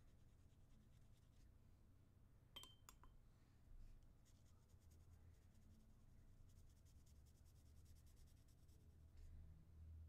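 Near silence, with faint scratching of a pencil tip dabbing and dragging coffee paint across paper, and two small clicks about two and a half and three seconds in.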